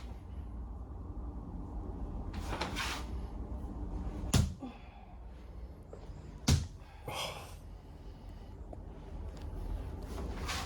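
Two sharp blows of a chiropractor's hand striking a seated patient's upper body, the first about four seconds in and the second two seconds later. Short hissy noises come before and after them. The blows are part of a percussive treatment meant to beat out muscle tension.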